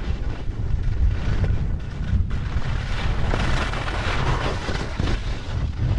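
Wind buffeting the microphone of a helmet-mounted action camera while skiing, a loud, unsteady low rumble, with the hiss and scrape of skis on snow.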